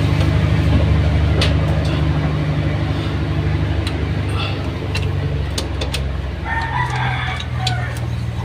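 A rooster crows once, about six and a half seconds in, over the steady low drone of an engine running, with a few sharp clicks.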